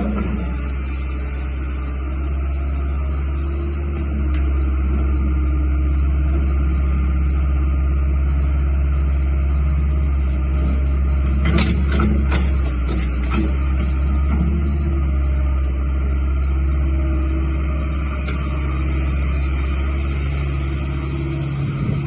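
Kobelco SK120LC Series 4 tracked excavator's diesel engine running steadily with a deep hum. Several sharp clanks come about halfway through.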